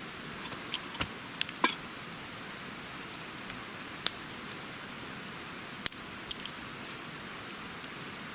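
Scattered sharp clicks and taps of tableware during a meal, a small cluster about six seconds in, over a steady hiss of light rain.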